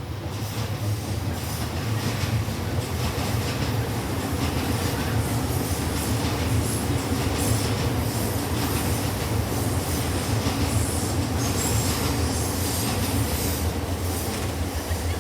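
Electric commuter train passing close by: a steady loud rumble of wheels on the rails, with a high wheel squeal coming through at times.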